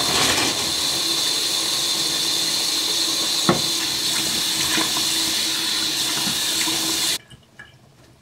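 Bathroom sink tap running steadily while someone washes her face, with a few small splashes; the running water stops abruptly about seven seconds in.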